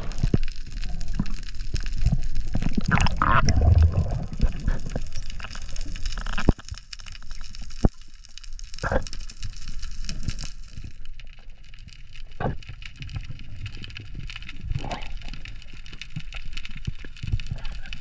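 Water splashing and sloshing at the surface beside a boat for about the first six seconds. It then gives way to muffled underwater sound: a low, dull water noise with scattered sharp clicks and crackles.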